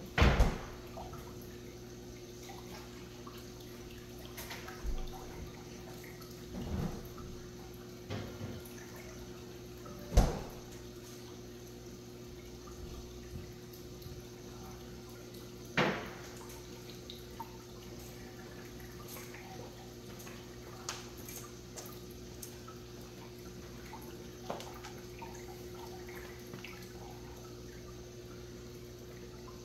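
Saltwater aquarium's filtration and aeration running: water trickling and bubbling over a steady electric hum from the pumps. Several sharp knocks or clicks come through it, the loudest right at the start, about ten seconds in and about sixteen seconds in.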